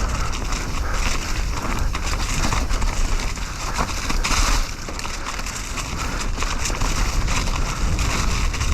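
Mountain bike riding fast down a dirt trail: steady tyre roar over the ground with scattered clicks and rattles from the bike, and wind rushing over the microphone.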